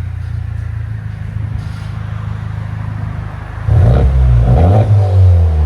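Honda Civic Type R's turbocharged four-cylinder through a Remark Ti cat-back exhaust, heard from inside the cabin: a steady idle drone, then about two-thirds in it is revved in about three quick blips that rise and fall in pitch.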